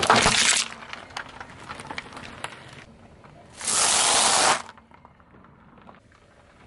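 Something crunching and crackling as it is crushed under a car tyre: a loud crunch at the start, scattered small crackles, and a hiss lasting about a second a little past halfway.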